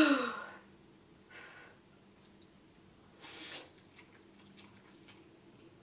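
A woman lets out a short sigh-like vocal sound with falling pitch, then takes a breath. About three seconds in she slurps up a mouthful of instant ramen noodles, followed by faint chewing clicks.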